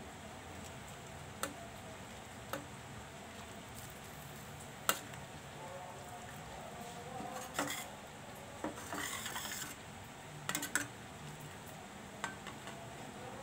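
Metal spatula clinking and scraping against a thick stainless steel frying pan while stirring a yellow spice broth. Scattered sharp clinks come every second or two, with a short scraping stretch about nine seconds in.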